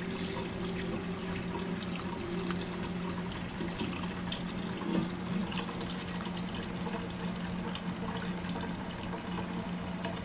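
Lobster-shell stock poured from a stainless steel pot through a fine-mesh strainer into a pot below, a steady stream of liquid splashing and trickling as it fills.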